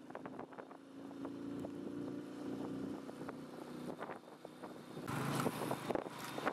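A vehicle engine running at a steady note, with wind buffeting the microphone, strongest in a gust about five seconds in.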